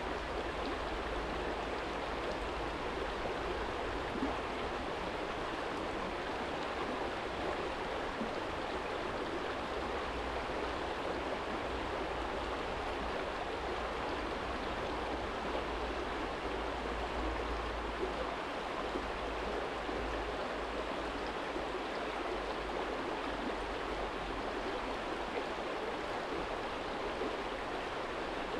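Small stream flowing over a stony bed: a steady, even rush of water, with a low rumble underneath.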